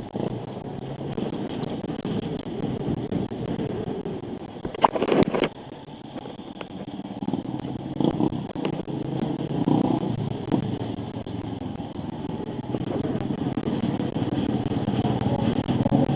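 Street traffic heard from a moving bicycle: motorcycle engines running and passing over a steady rumble of road and riding noise. A brief, loud burst about five seconds in.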